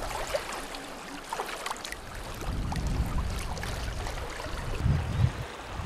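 Moving river water, a steady wash with some gurgling, joined about halfway through by a low rumble of wind on the microphone.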